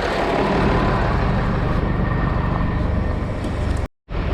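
Farm tractor engine running steadily. The sound cuts out abruptly for a moment near the end.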